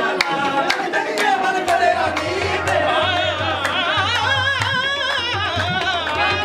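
Qawwali music: a lead voice sings long, wavering ornamented lines, most elaborate in the second half, over a steady rhythm of sharp hand-drum strokes.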